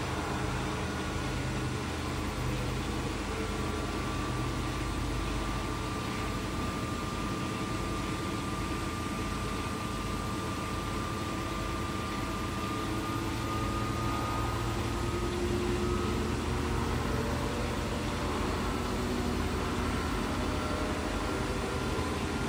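Beko WMB71643 PTSI front-loading washing machine running, its ProSmartInverter motor turning the drum with a steady hum and a faint whine that drifts slowly up and down in pitch.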